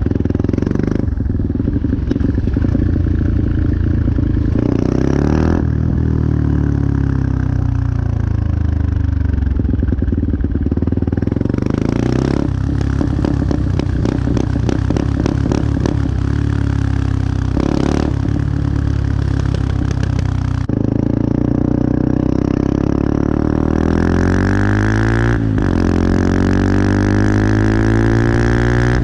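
Benelli TNT 125 single-cylinder engine being revved over and over, its pitch climbing and falling back. At times it is held at high revs with a rapid stuttering, the engine bouncing off the rev limiter.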